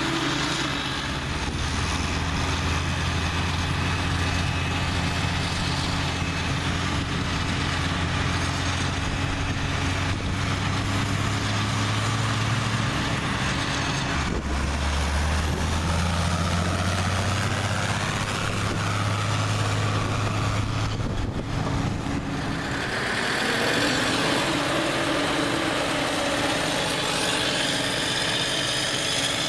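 Heavy diesel farm machinery running at work, a steady low engine note. About 23 seconds in, the low note gives way to a different, higher engine sound, as another machine comes to the fore.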